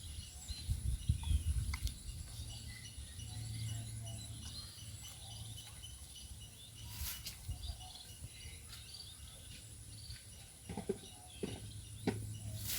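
Rural outdoor ambience: insects droning steadily at a high pitch while small birds chirp. There are low rumbles in the first couple of seconds and a few sharp clicks near the end.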